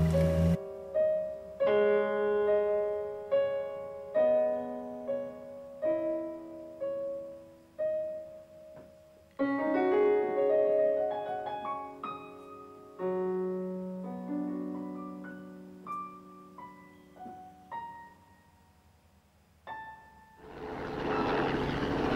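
Improvised solo piano: single struck notes and a few chords, each ringing out and fading, thinning to near silence. About twenty seconds in, a steady rushing engine noise sets in: a helicopter passing overhead.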